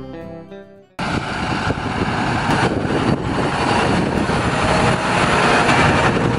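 Acoustic guitar music fading out, then from about a second in a John Deere tractor's diesel engine running loud and steady close by as the tractor drives past.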